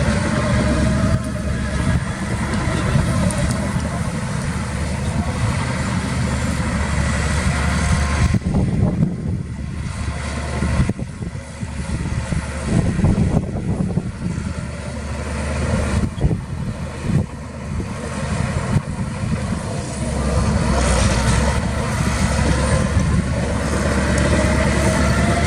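Heavy diesel earthmoving machinery running, its engine load rising and falling. A whining tone sounds near the start and the end, with scattered knocks and clanks in the middle.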